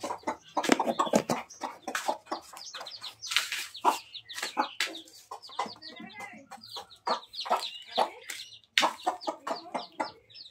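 Aseel hen clucking repeatedly while her chicks peep, as they feed together from a tray of grain; many short calls follow one another throughout.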